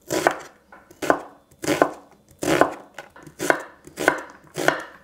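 Chef's knife slicing through an onion and knocking down onto a wooden cutting board, a crisp cut roughly every half second, some strokes louder than others.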